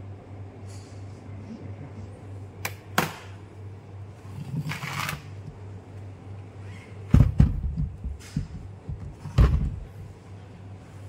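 Heavy metal-on-metal handling of an axial piston pump's cast housing on a chequer-plate metal workbench: a few light clicks and a brief scrape, then loud low thuds, about 7 and 9.5 seconds in, as the pump body is tipped onto its side. A steady low hum runs underneath.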